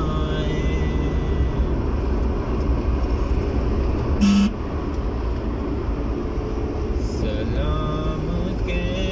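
Steady engine and road rumble heard from inside a car driving in city traffic, with one short horn toot about four seconds in.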